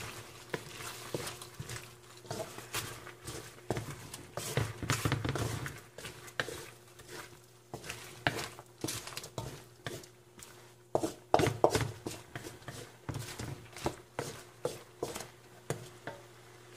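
Wooden spatula stirring chopped vegetables in an aluminium wok, with irregular knocks and scrapes against the pan over a faint steady hum.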